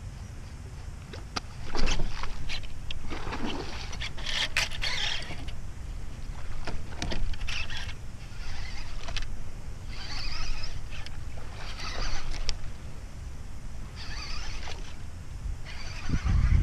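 Fishing reel cranked in short bursts every second or two as a topwater frog lure is worked, over a low wind rumble on the microphone. A few sharp clicks near the start and a heavy low thump near the end.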